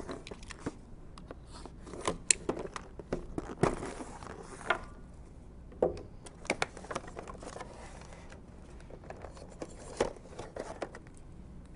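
A cardboard box being cut open with a small knife and its lid and flaps lifted: scattered scrapes, rustles and clicks of cardboard and tape.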